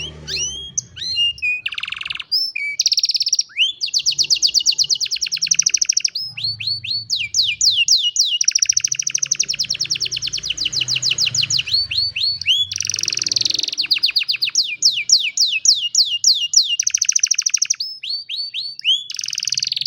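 An old domestic canary singing a long, unbroken song: fast trilled runs of rapidly repeated notes, linked by short rising chirps.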